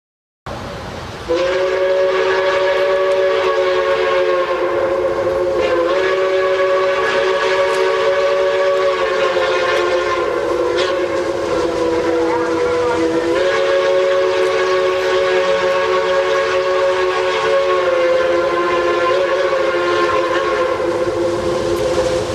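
Pennsylvania Railroad 1361 steam locomotive whistle blowing one long blast, several tones sounding together as a chord. It starts about a second in after a brief hiss of steam and wavers slightly in pitch a few times as it is held.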